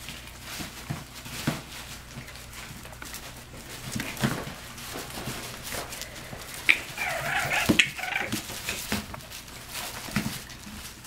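Four-week-old French Bulldog puppies playing, with scattered scuffles and rustling on the cloth. About seven seconds in, there is a short run of high-pitched puppy squeals and whimpers.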